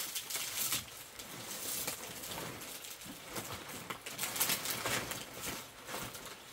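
Palm-leaf thatch rustling and crackling in irregular scratchy bursts as fronds are handled and pushed into place on a bamboo roof frame.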